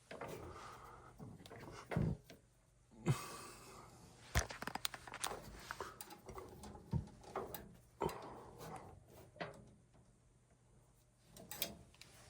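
Handling noise: scattered clicks, knocks and rustling as tools and parts are worked by hand in a tight spot.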